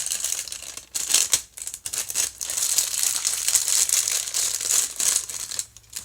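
Packaging crinkling and rustling as a boxed toy is unwrapped by hand, in several bursts with brief pauses.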